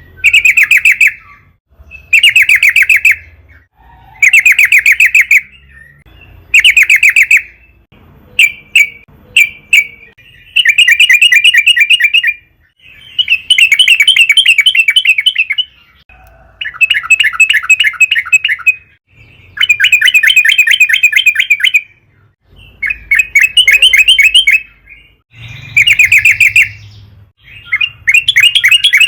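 Yellow-vented bulbul (trucukan) singing loudly in repeated fast, bubbling phrases of rapid notes, each one to two seconds long with short pauses between, and a few short single calls partway through.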